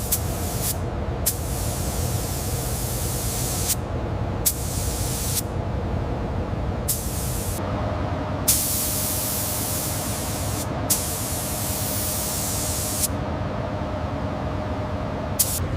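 Compressed-air spray gun hissing in spurts of one to two seconds, triggered on and off about seven times, typical of spraying a finish onto wood. A steady low machinery hum runs underneath.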